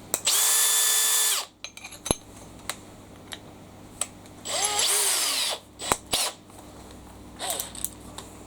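Makita XPH07 brushless cordless hammer drill run in two short bursts of about a second each, its motor whine holding steady and then winding down as the trigger is released, the second burst spinning up first. A few sharp clicks come between the bursts.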